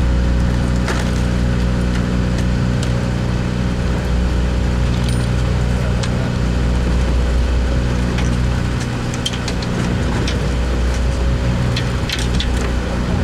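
Sportfishing boat's engine running steadily, a low drone that wavers briefly past the middle, with scattered light clicks and knocks on deck.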